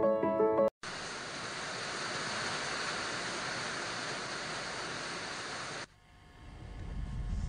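A moment of music cuts off, then analogue TV static hisses evenly for about five seconds and stops suddenly; a low rumble then swells up near the end.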